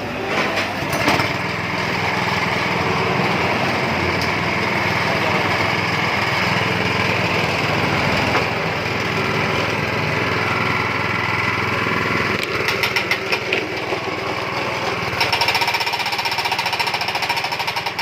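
Engine of a derek (winch or crane) machine running steadily. About twelve seconds in it changes to a faster, uneven chugging.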